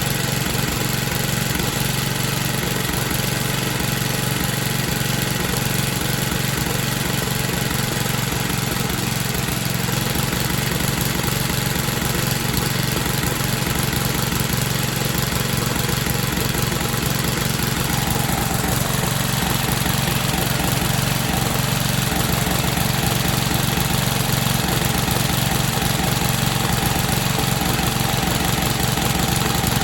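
Riding lawn mower's small engine running steadily at idle. About two-thirds of the way through, a steady higher whine joins the engine note.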